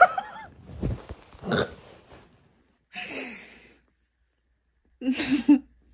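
Short non-word vocal sounds from a person: a few brief grunt-like voiced sounds with sliding pitch, one at the start, one about three seconds in and one about five seconds in, with a breathy exhalation between the first two.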